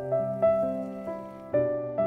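Background solo piano music: a slow melody of struck notes, each ringing and fading before the next.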